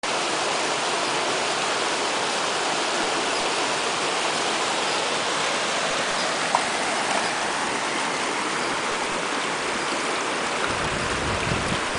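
Small mountain stream tumbling over a rocky cascade: a steady rush and splash of water. A low rumble joins near the end.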